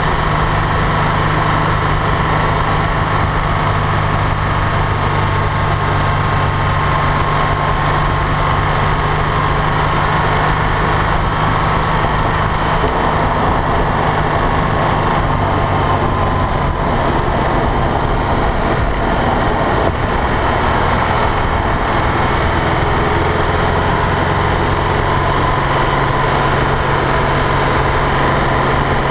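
AVO-turbocharged Scion FR-S's 2.0-litre flat-four engine running at a steady cruise, with wind and road noise over it. The engine note holds level, then shifts to a new pitch about two-thirds of the way through and again near the end.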